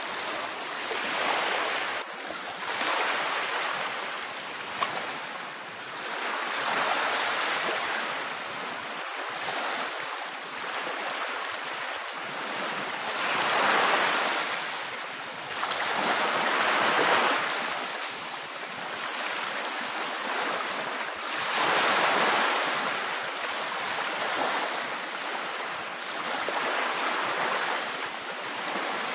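Waves breaking on a beach: a rush of surf that swells and fades every few seconds.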